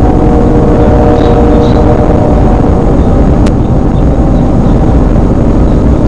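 Loud, steady rumbling wind noise on an outdoor nest-camera microphone, with a faint droning tone in the first half and a single click about three and a half seconds in.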